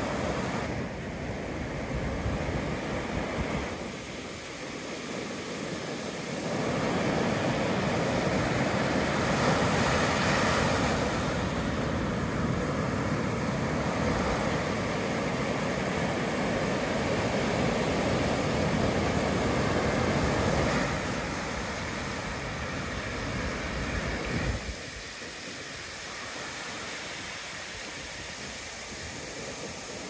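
Ocean surf breaking and foamy wash running up a sandy beach: a steady rushing hiss that swells louder through the middle and drops off suddenly near the end.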